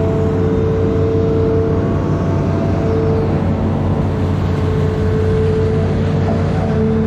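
Amphibious excavator's diesel engine running steadily under work, with a steady high hum on top of its low drone.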